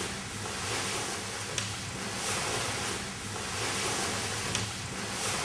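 Large fabric boat cover rustling and swishing as it is dragged back over a boat's hull and windshield, swelling and fading in repeated pulls about once a second.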